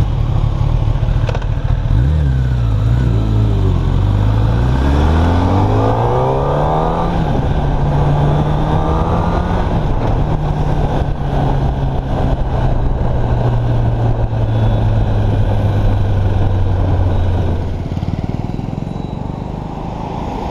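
Kawasaki ZX-10R's inline-four engine pulling away and accelerating through several quick upshifts, its pitch climbing and dropping with each gear change. It then cruises at a steady pitch and eases off near the end.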